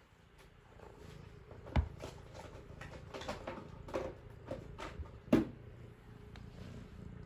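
A few sharp knocks and lighter taps over a low steady hum, the loudest knocks a little under two seconds in and again a little past five seconds.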